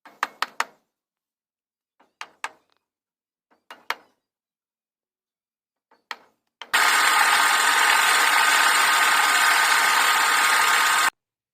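Sharp knocks in short groups, then a power tool running steadily for about four seconds before cutting off suddenly.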